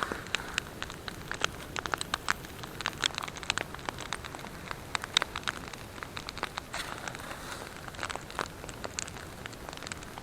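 Wood campfire crackling: irregular sharp snaps, several a second at times, over a soft steady hiss of burning.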